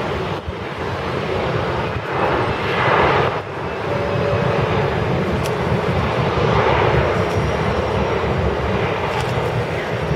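Jet engines of a Boeing 737 airliner running as it rolls along the runway: a steady rumbling whoosh that swells louder twice.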